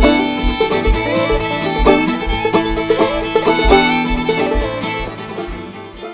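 Old-time string band playing a tune: clawhammer banjo and fiddle over an even low beat, getting quieter near the end.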